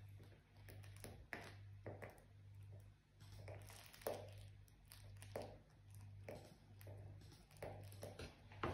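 Dachshund puppy mouthing and chewing a soft toy: faint scattered clicks and soft rustles. Under them runs a low hum that pulses on and off a little more than once a second.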